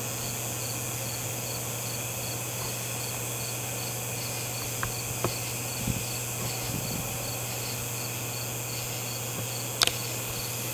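Insects chirping in an even rhythm, about three high chirps a second, over a steady low hum and hiss. A few faint clicks, and one sharper click about ten seconds in.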